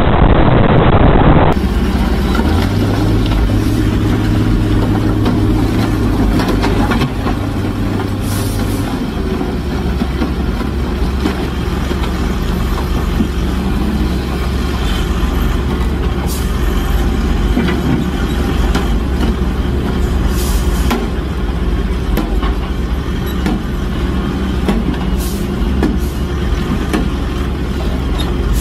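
Heavy diesel truck engine running steadily, a low rumble with a hum over it for the first several seconds. A louder noise cuts off about a second in.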